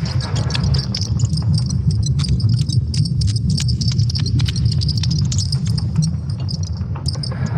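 Sonified recording of Earth's magnetosphere: a steady low rumble under a dense, rapid high-pitched crackle with scattered sharp clicks.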